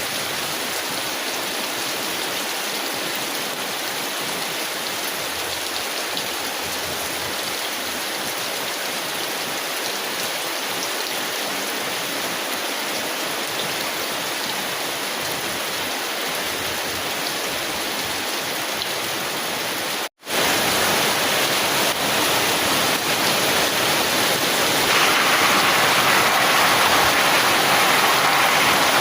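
Steady heavy rain drumming on a thin tin umbrella. It breaks off for an instant about two-thirds of the way through and comes back a little louder.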